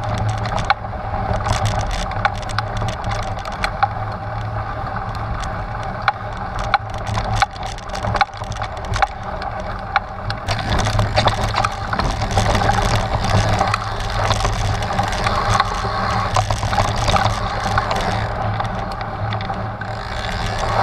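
Trek Stache 9 hardtail mountain bike on 29-plus tyres riding over a rough, rocky trail: tyres crunching over gravel and rock, and the bike rattling, with many sharp knocks. The noise grows rougher and brighter about halfway through.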